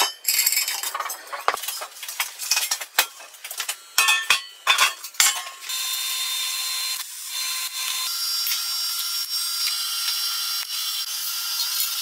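Irregular metal clinks and knocks from hand work on the steel body of a gas-cylinder barbecue. About six seconds in these give way to a steady hiss with a faint high whine.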